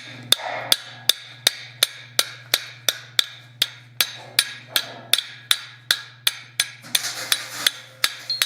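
Hand hammer striking hot steel bar on an anvil in a steady rhythm, about three blows a second, forging out the arm of a small figure. A steady low hum runs under the blows.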